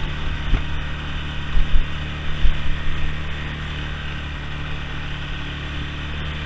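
ATV engine running at a steady pitch while riding over rough ground, with several low thumps from jolts in the first few seconds.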